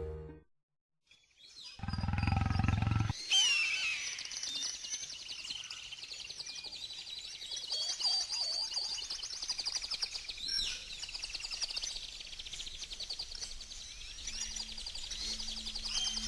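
A big cat's roar, short and loud, about two seconds in, followed by jungle ambience of many birds chirping. A low steady hum joins near the end.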